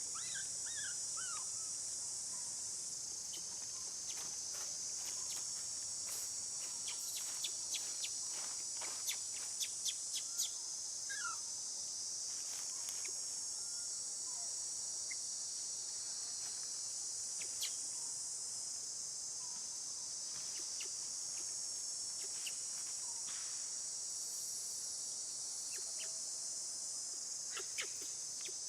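Steady high-pitched insect chorus, with a cluster of sharp clicks about seven to eleven seconds in and a few short bird chirps scattered through.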